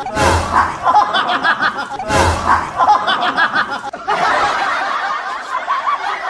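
Canned laughter sound effect: one short clip of a person snickering repeats in a loop every two seconds. About four seconds in, a different, slightly duller laughter clip takes over.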